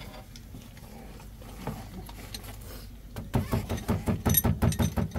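A utensil beating rapidly against a bowl, about eight quick strikes a second, starting about three seconds in.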